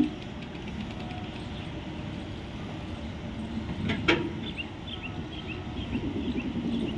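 Passenger coaches rolling slowly through an automatic coach-washing plant: a steady low rumble of wheels on rail, with a thump right at the start and a sharp clack about four seconds in.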